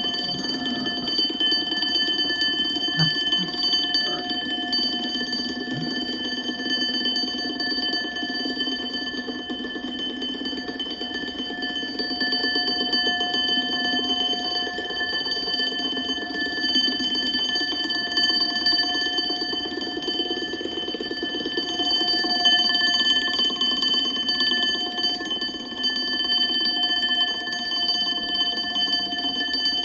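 Alarm clock bell ringing continuously at an even level, without a break.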